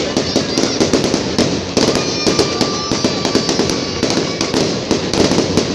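Fireworks display going off: dense, continuous crackling with rapid pops and bangs. A steady high whistle runs for about a second and a half, starting around two seconds in.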